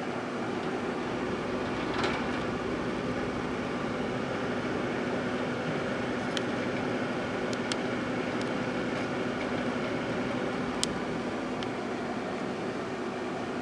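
Microwave oven running with a steady hum, while a cup of yoghurt heats inside; a few short sharp pops or ticks come through at irregular times.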